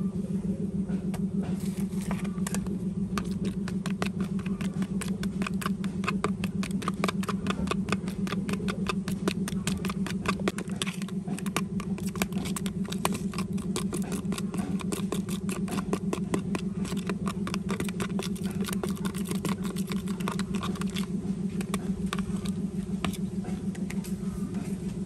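A steady engine-like motor hum runs underneath rapid, dense clicking and scraping from a knife stirring a thick yellow mixture in a plastic tub. The clicking thins out after about twenty seconds.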